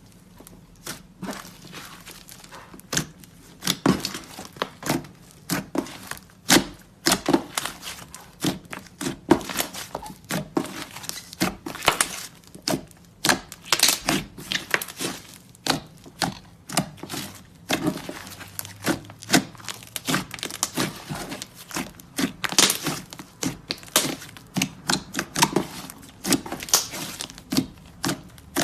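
Slime being mixed and kneaded with clay by hand, making a dense, irregular run of pops and crackles that starts about a second in.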